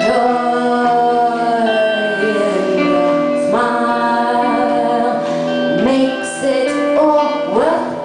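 A woman singing long held notes over live guitar accompaniment.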